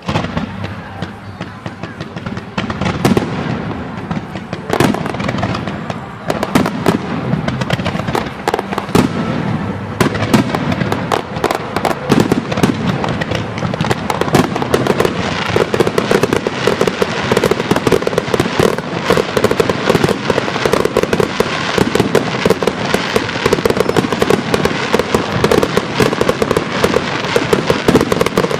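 Aerial fireworks going off: scattered bangs and cracks at first, then from about ten seconds in a dense, continuous crackle of many bursts.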